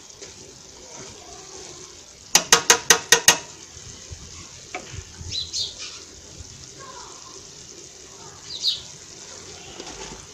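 Sweet potato leaves being stirred in an aluminium cooking pot over a steady hiss from the cooking pot. About two and a half seconds in comes a quick run of about seven sharp knocks within a second, the utensil rapped against the pot.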